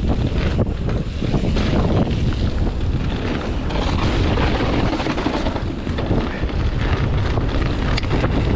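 Wind rushing over an action camera's microphone as a mountain bike descends a dirt trail at speed, with a steady low rumble from the tyres and frequent short rattles and knocks from the bike over bumps.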